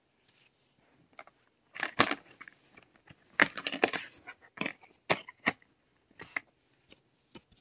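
Plastic DVD case being handled and opened by hand: a string of clicks, knocks and crinkling of the clear plastic cover sleeve. It is loudest about two seconds in and again around three and a half to four seconds.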